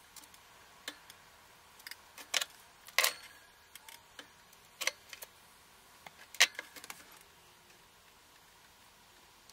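Small sharp plastic clicks and taps, irregularly spaced, from handling a lipo battery's balance-lead connector and pushing its wire terminals into the housing; the loudest come about three and six and a half seconds in.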